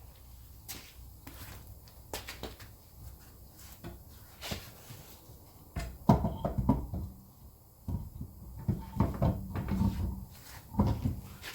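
Irregular metal clunks, knocks and clicks as a car wheel is handled and fitted back onto the hub, the heaviest thumps coming in the second half.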